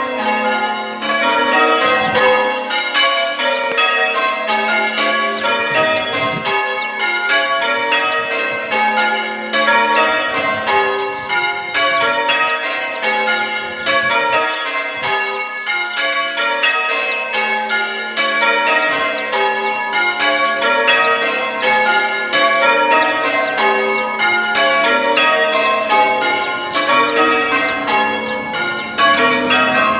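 A ring of six church bells change ringing, struck one after another in an unbroken, even stream of changes.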